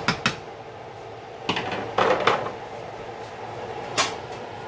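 Sharp metal clicks as a wire spider skimmer knocks against a large aluminium stockpot, a longer rattling clatter about a second and a half in, and one more knock near the end, over a steady background hum.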